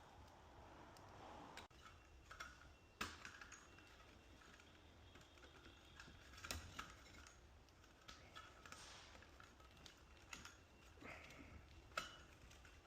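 Faint, scattered clicks and taps of small plastic electrical parts being handled while LED recessed-light wiring is worked on, with a few sharper clicks now and then.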